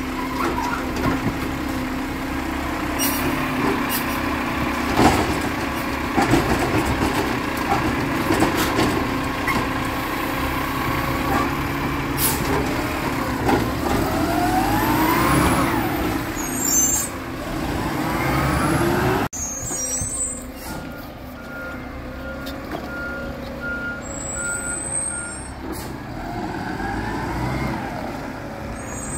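Garbage truck's engine running, with scattered clanks and knocks; about halfway through the engine revs up and back down twice. Later a backup alarm beeps in a steady row for a few seconds.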